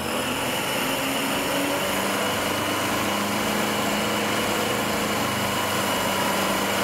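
Car engine with its carburetor removed, fed fuel by gravity from an IV drip straight into the intake manifold, running steadily at a fast idle of about 2,000 rpm.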